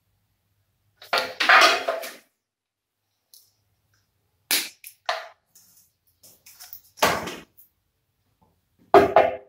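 Side cutters snipping through heat-shrink tubing: a few sharp snaps with a little tool-handling clatter. The loudest come about a second in and just before the end.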